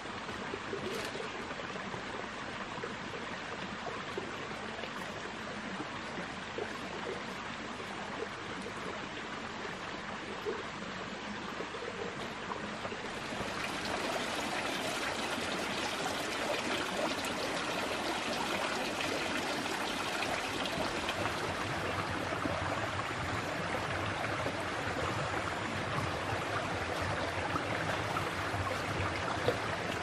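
Small forest stream flowing: a steady rush of running and trickling water, which becomes louder and brighter about halfway through.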